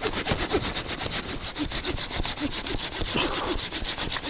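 Opinel No. 18 folding saw cutting through a lichen-covered branch in quick, even strokes, wood rasping with each pass of the blade.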